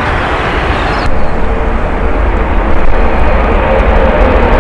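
Antonov An-225 Mriya's six turbofan engines at takeoff thrust as the aircraft lifts off and climbs: a loud, steady jet rumble. About a second in, the higher hiss drops away abruptly and the low rumble continues.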